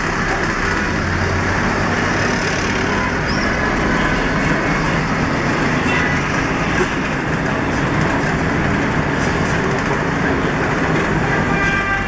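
Inside a Huanghai DD6181S03 city bus under way: a steady drone of the engine and drivetrain mixed with road and traffic noise.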